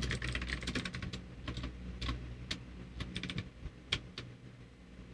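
Computer keyboard typing: quick runs of keystrokes, dense in the first second, then shorter bursts that thin out toward the end.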